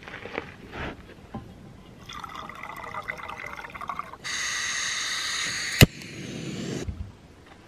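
Water being poured into a container in two stretches, the second louder, with a single sharp click near the end.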